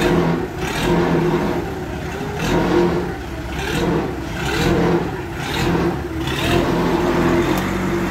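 Large forklift's engine running, its pitch rising and falling again and again as it is revved up and eased off while the forklift manoeuvres.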